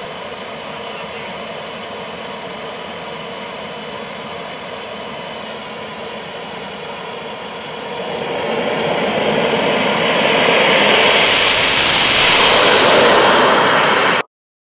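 Model turbine jet engine of a radio-controlled F-16 running with a steady whine. About eight seconds in it spools up to full power for the takeoff roll, growing much louder with a strong high hiss, then the sound cuts off suddenly near the end.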